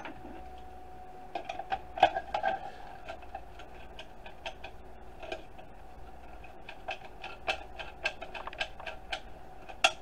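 Hand snips biting into the plastic housing of a Roomba charging station, cutting off its lip: a string of irregular sharp clicks and snaps over a faint steady hum.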